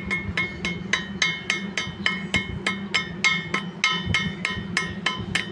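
Metal being struck in a fast, even rhythm, about four ringing clanks a second, over a steady low hum.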